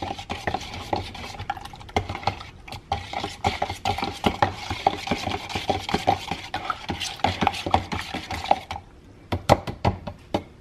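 Metal spoon stirring a liquid mixture in a bowl, scraping and clinking against the sides in quick strokes. The stirring stops about nine seconds in, followed by a few sharp clicks.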